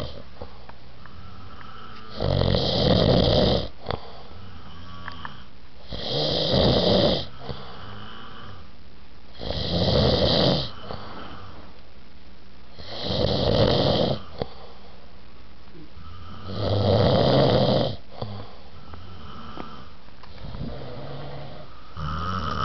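A person snoring: five loud snores, each lasting about a second and a half and coming roughly every three and a half seconds, then a softer one near the end.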